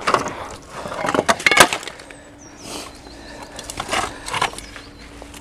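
Knocks and clatter of rusty metal scrap being handled, with a sharp ringing clank about a second and a half in, then a few softer knocks.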